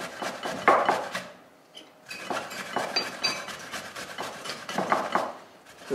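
A carrot being grated on a metal hand grater: quick repeated rasping strokes, with a short pause a little over a second in.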